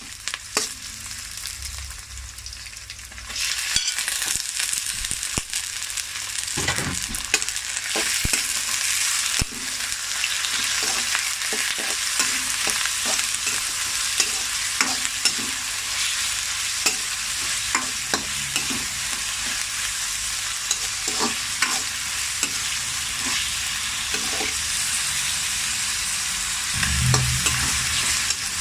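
Food sizzling in a frying pan while being stirred, with frequent sharp clicks and scrapes of a utensil against the pan. The sizzle grows louder a few seconds in.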